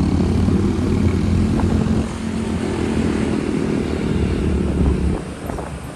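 Motorcycle engine running on the move, with road and wind noise; the sound drops noticeably about five seconds in.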